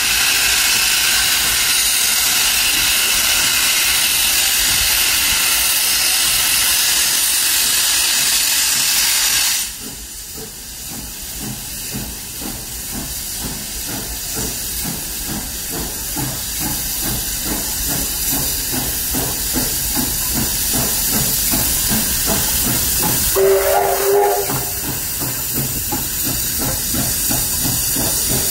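Steam locomotive 6029, an AD60-class Beyer-Garratt, letting off a loud hiss of steam that cuts off suddenly about ten seconds in. It then pulls away with rhythmic exhaust chuffs that grow louder, and gives a short whistle blast near the end.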